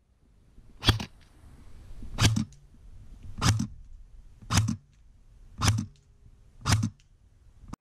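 King Arms Black Rain Ordnance airsoft electric gun firing single shots of 0.20 g BBs through a chronograph for a muzzle-velocity test: six short sharp shots about a second apart.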